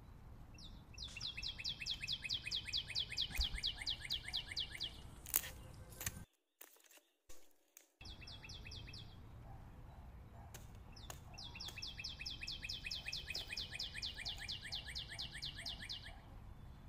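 A bird calling in two long, fast trills of evenly spaced high chirps, each lasting about four to five seconds, at roughly seven chirps a second. A couple of sharp wooden knocks come partway through.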